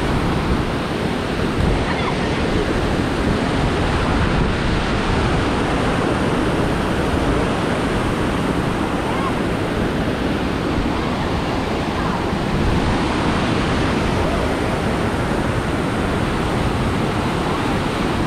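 Steady, very loud roar of a tall waterfall crashing into its plunge pool, heard up close at its base.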